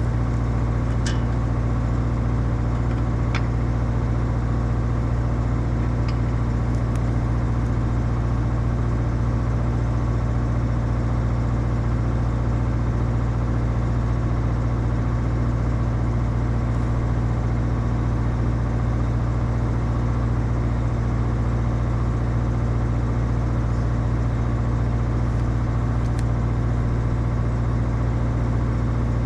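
Excavator's diesel engine running steadily at constant speed, an even low drone that does not change, with a couple of faint ticks in the first few seconds.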